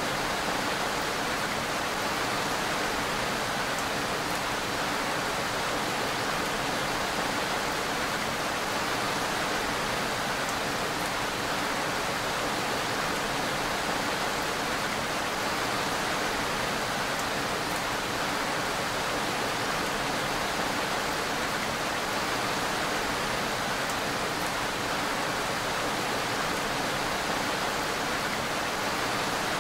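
Steady, unbroken rainfall, an even wash of noise with no breaks or changes.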